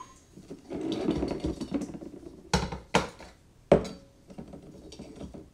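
Glass soda bottles and a plastic funnel being handled on a stone countertop: a stretch of soft handling noise, then three sharp glass knocks as a bottle is set down, the last the loudest.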